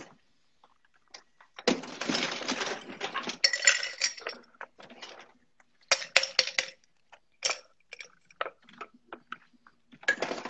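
Ice cubes clattering and clinking: a dense rattle for about two seconds, a shorter burst a few seconds later, and scattered single clinks.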